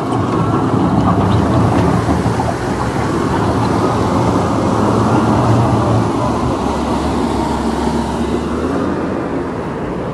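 Wheel loader's diesel engine running close by, over a steady rush of flowing mud and water.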